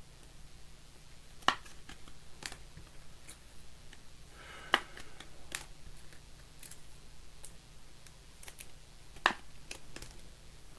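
Trading cards and plastic penny sleeves being handled on a table: scattered light clicks and taps, with three sharper ones spread through the stretch.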